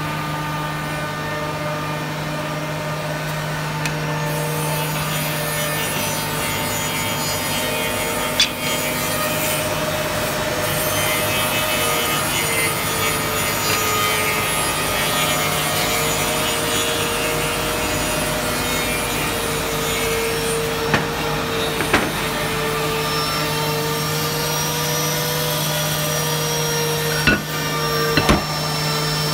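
Reignmac RMM723L four-sided moulder running and profiling rosewood: a steady machine hum with the hiss of the cutter heads in the wood, broken by a few sharp clicks.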